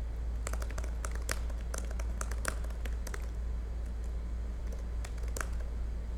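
Typing on a computer keyboard: quick, irregular key clicks in short runs, over a low steady hum.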